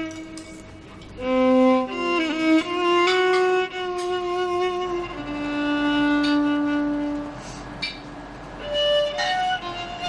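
Background music: a slow violin melody of long held notes, some with vibrato.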